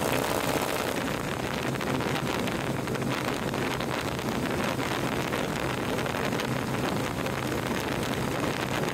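Wind rushing over the phone microphone on a Harley-Davidson motorcycle at highway speed, over the steady drone of its V-twin engine cruising.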